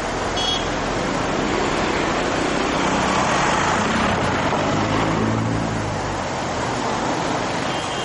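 Steady roar of churning whitewater rapids, swelling slightly around the middle.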